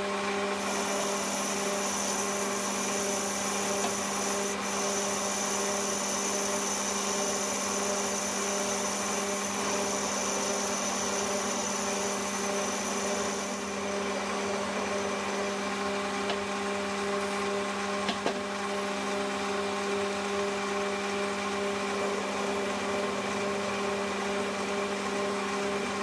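Metal lathe starting up and running at steady speed, its spindle and motor giving a constant hum, while an aluminium piston spins in the chuck to be polished by hand. A high whine over the hum drops away about halfway through.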